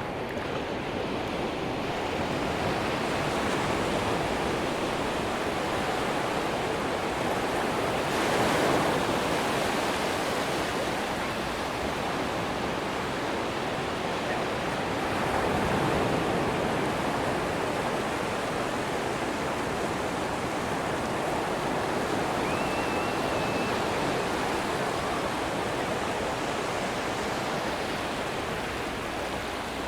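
Ocean surf washing onto a sandy beach: a steady hiss of breaking waves, swelling louder about eight seconds in and again around sixteen seconds in.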